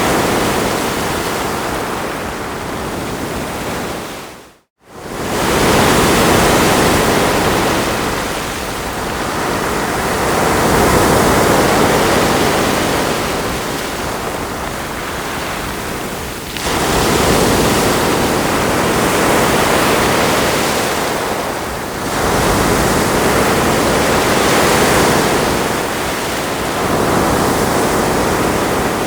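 Ocean surf washing onto a shore: a continuous rushing hiss that swells and eases as each wave comes in, every few seconds. About five seconds in the sound cuts out to silence for a moment, then comes straight back.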